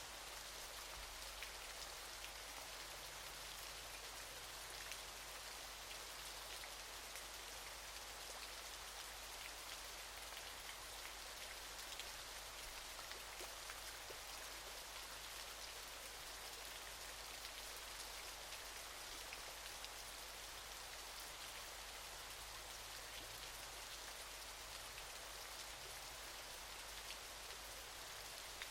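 Waterfall: a steady, even hiss of falling water with a fine spatter of drops, unchanging throughout.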